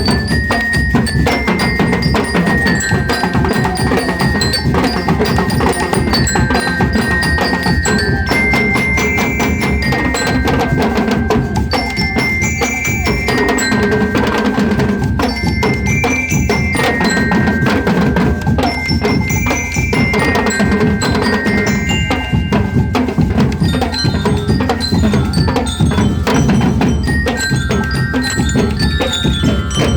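Marching band of bell lyres playing a melody of high, ringing notes over steady drumming.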